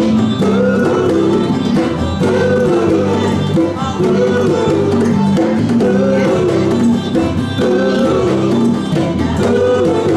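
A small live band playing a song, a melody phrase repeating about every two seconds over a steady low backing.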